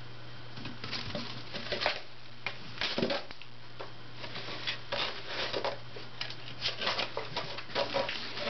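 Siamese kittens scrabbling in and against cardboard boxes: irregular clusters of short scratching and rustling from claws and paws on cardboard.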